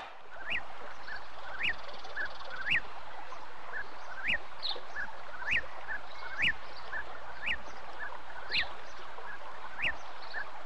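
Short chirping animal calls repeating about once a second, with fainter chirps between them, over a steady background hiss, like a nature-ambience track.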